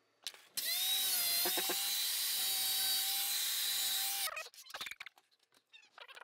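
A handheld electric power tool starts up, runs steadily with a whine for about three and a half seconds, then winds down and stops, followed by a few light clicks and knocks of tile being handled.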